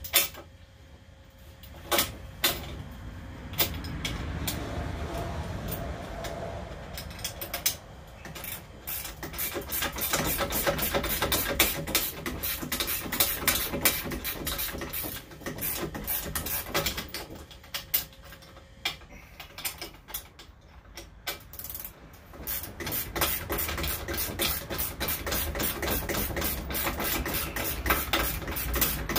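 Hand tools working bolts on a metal assembly: a few separate knocks, then long runs of rapid clicking twice, with a short pause between.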